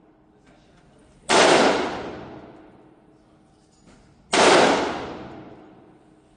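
Two loud gunshots about three seconds apart, each followed by a long echoing tail.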